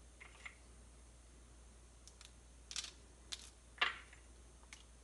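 Faint, scattered clicks and rustles of fingers picking chopped nuts from a small glass bowl and sprinkling them onto parchment paper, the loudest tap about three-quarters of the way in.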